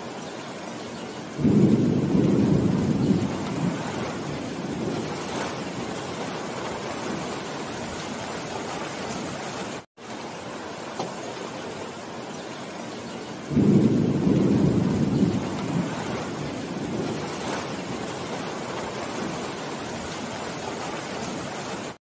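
Steady rain falling on leafy trees, with a low rumble of thunder breaking in about a second and a half in and fading over a couple of seconds. After a brief drop-out in the sound about halfway through, the same rumble of thunder comes again.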